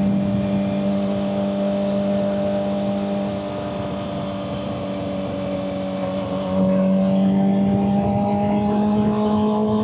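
Suzuki GSX-R600's inline-four engine running at a steady cruise, with wind rush. About six and a half seconds in the throttle opens, the engine gets louder and its pitch climbs slowly.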